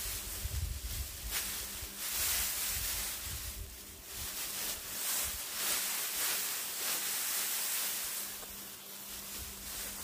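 Dry rice straw rustling as a cut rice sheaf is gathered and bound by hand, the rustle rising and falling in waves with each handful and tug.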